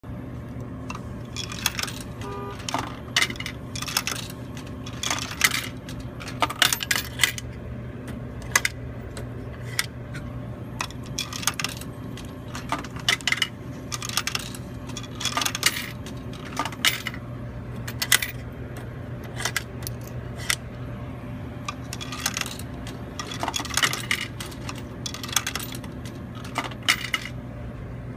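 Coins clinking one after another as they are fed into a soda vending machine's coin slot and drop through its coin mechanism, dozens of sharp clicks spread over the whole stretch, over a steady low hum.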